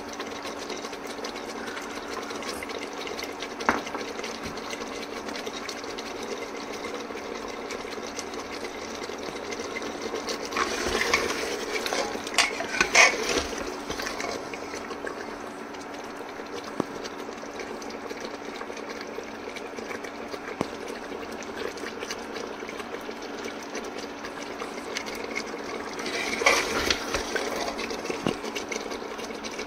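Food cooking in a pot over a steady hum, with a spoon stirring and scraping the pot in two spells, about ten seconds in and again near the end.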